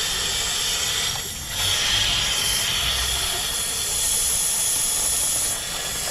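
Steady rush of water pouring out of an LT1 V8 engine block through the open knock-sensor hole as the cooling system is flushed, dipping briefly a little over a second in.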